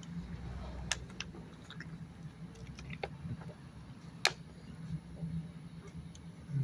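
Quiet background: a steady low hum with a few scattered small clicks, the sharpest about four seconds in.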